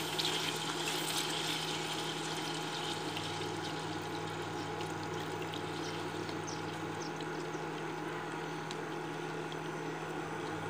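Milk poured in a stream into hot ghee in a stainless steel pan, a steady pouring hiss that is brightest in the first few seconds, with a few faint ticks, over a steady low hum.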